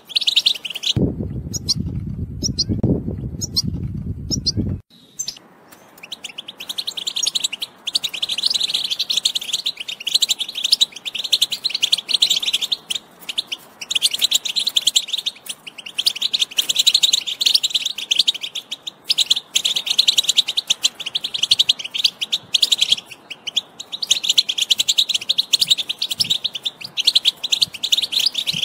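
European goldfinch singing a fast, continuous twittering song, broken by short pauses. A low rumble sounds under it for a few seconds near the start.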